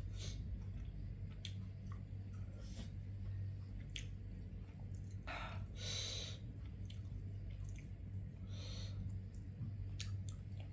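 A person eating fried fish with curry and rice, close to the microphone: soft chewing with scattered small mouth clicks, two short breathy noises near the middle, and a steady low hum underneath.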